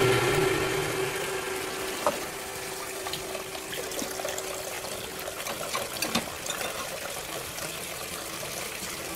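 Water running steadily, with small splashes and clicks.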